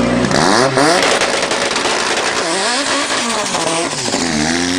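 A 900-horsepower Opel Calibra and a Daewoo Nexia 2.0 16V launching off a drag-strip start line and accelerating hard. Engine pitch rises sharply, drops back at each gear change and climbs again several times.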